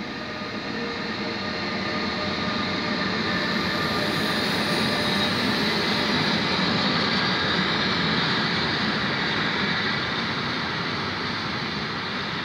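Train hauled by an electric locomotive passing: several steady whining tones from the locomotive as it comes close, then the rolling noise of the wagons, loudest midway and easing off near the end.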